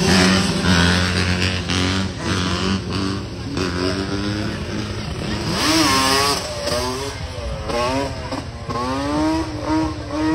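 Quad bike engines running, then from about halfway one engine revs up and down repeatedly as the rider holds a wheelie.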